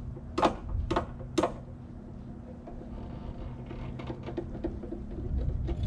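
Car's scissor jack being cranked down by its handle, metal clinking and ticking: three sharp clinks about half a second apart near the start, then a run of lighter ticks later on, over a steady low hum.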